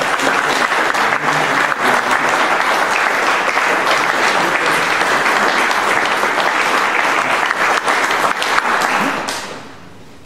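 Audience applauding, a dense clapping that fades out about nine seconds in.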